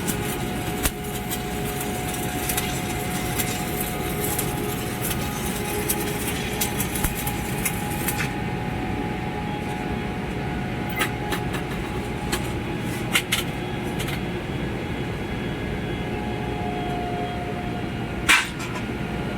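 Stick-welding arc crackling over a steady low machine hum. The crackle cuts off about eight seconds in, leaving the hum with a few sharp clicks and a knock near the end.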